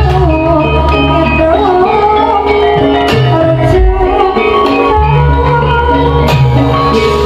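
Javanese gamelan music accompanying a lengger masked dance: held pitched notes with a wavering sung or melodic line above and deep low notes that come and go.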